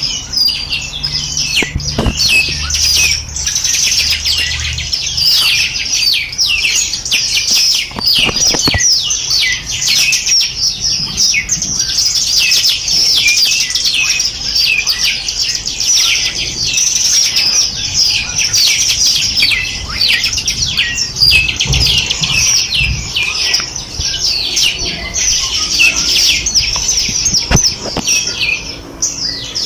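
A dense chorus of many small birds chirping and twittering rapidly over one another without a break, with a few soft low thumps mixed in.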